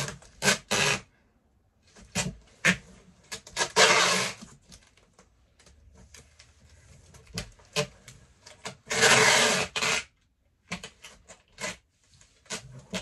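Brown packing tape pulled off the roll in long rasping strips and pressed onto a cardboard box. Two long pulls, about four seconds in and about nine seconds in, with shorter rips, clicks and rubbing of the tape against the cardboard between them.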